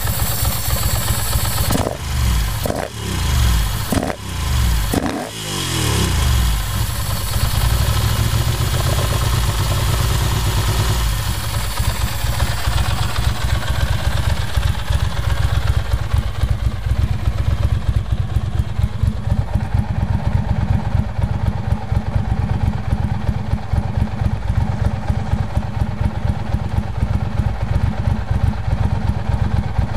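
Ducati Monster 620 i.e.'s air-cooled V-twin through an aftermarket Termignoni exhaust, warmed up. The throttle is blipped about four times in the first six seconds, each rev dropping back. After that it settles to a steady idle.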